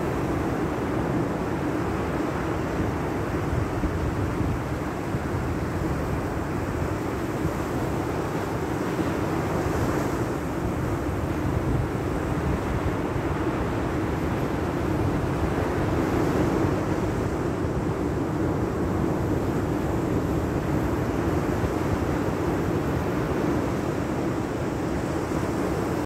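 Sea surf breaking on a sandy beach, with wind on the microphone: a steady rushing noise that rises and falls only slightly.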